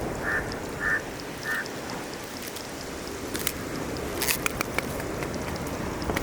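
Three short bird calls, evenly spaced about half a second apart, over a steady wash of surf and wind noise. A few sharp clicks and knocks follow later.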